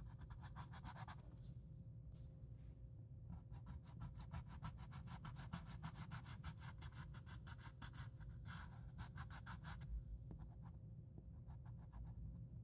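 Coloured pencil scratching on paper in quick back-and-forth shading strokes, faint; it pauses about a second in, resumes, and mostly stops after about ten seconds.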